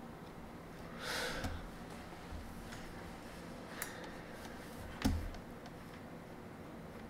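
Quiet room tone at a computer desk, with a short breath about a second in and two soft clicks near four and five seconds, the second with a light knock.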